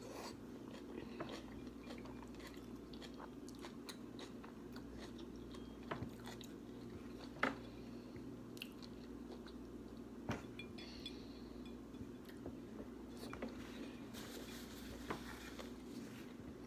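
A person chewing and biting food close to the microphone, with scattered sharp crunches and clicks over a steady low hum.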